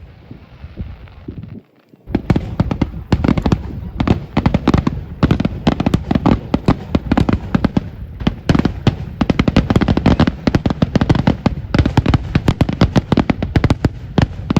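Fireworks going off in a rapid barrage of many sharp bangs and crackles, after a brief drop in sound about two seconds in.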